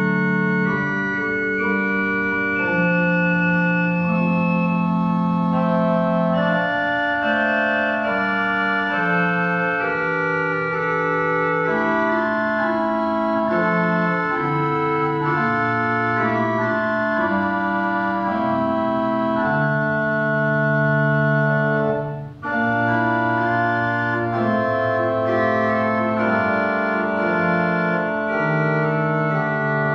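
Pipe organ playing a slow hymn-based piece in held chords, the notes changing every second or two, with a short break between phrases about 22 seconds in.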